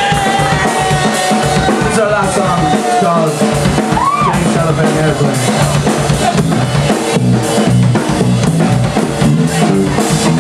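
Live rock band playing loud: electric guitars, bass and a drum kit, with a held note that glides in pitch over the first few seconds before the drums settle into a steady beat.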